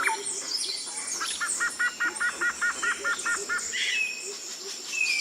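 Rainforest birds calling: one gives a rapid run of about ten identical repeated notes, around four a second, while others add scattered higher chirps and whistles over a steady high insect whine.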